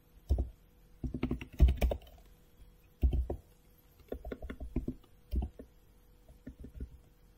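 Typing on a computer keyboard: several quick runs of keystrokes with short pauses between them, the busiest run about one and a half to two seconds in.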